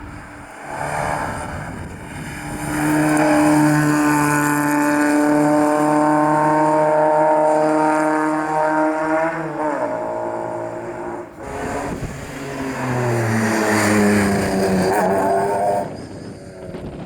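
Rally cars at full throttle: one engine held at high revs and climbing slowly, then dropping sharply as the driver lifts off about ten seconds in. A second clip follows with an engine whose pitch falls steadily as it slows or passes.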